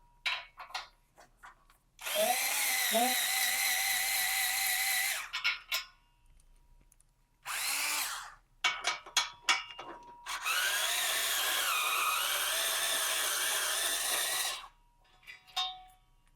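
Cordless power tool spinning off the exhaust bolts at the catback joint in three runs: a long one about two seconds in, a short burst near the middle, and another long one whose pitch dips partway through. Small metal clicks and clinks fall between the runs.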